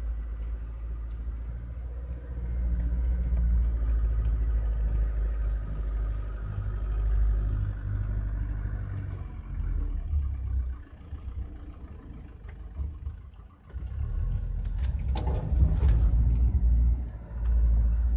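Off-road 4x4's engine running under load, heard from inside the cab as it climbs a bank. It eases off about ten seconds in, then comes back with a burst of knocks and rattles from the vehicle as it drops over the edge.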